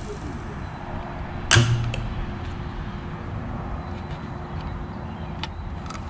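Power wheelchair motor's electromagnetic brake clicking once, sharply, about a second and a half in, as the remote-controlled chair responds to the transmitter's trigger. A few faint ticks follow over a steady low hum.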